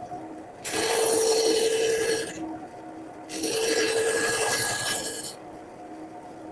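Carving tool cutting into a woodblock: two long scraping strokes, each lasting about two seconds, with a short pause between them.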